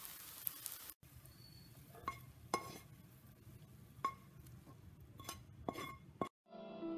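Frying hiss from the pan for about the first second. Then a cooking utensil clinks and scrapes against a non-stick pan and a bowl several times as cooked bitter gourd and egg is tipped out of the pan into the bowl. Soft music starts near the end.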